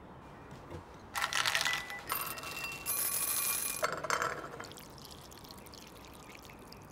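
Liquid poured into a bowl, in two or three loud stretches from about a second in until about four seconds in, with some ringing from the bowl.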